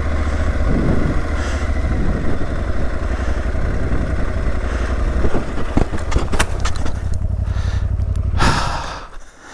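Aprilia Tuareg 660's parallel-twin engine running at low revs as the motorcycle rolls down a packed-snow and icy trail. Sharp knocks and scrapes come in the second half. A loud rush of noise about eight and a half seconds in is the bike going down, and the engine then goes quiet.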